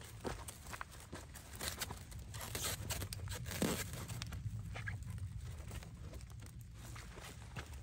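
Plastic stretch film crinkling and crackling as it is pulled off the roll and stretched around a stick frame, in irregular rustles with a sharper crackle about three and a half seconds in.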